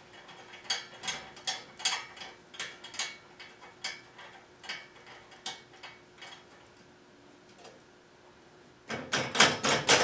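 Light metal clicks, about two a second and slowing, as bolts on a Holzfforma chainsaw mill's bar clamp are tightened from underneath with the mill's supplied socket-style tool. A quicker, louder run of metal clatter near the end.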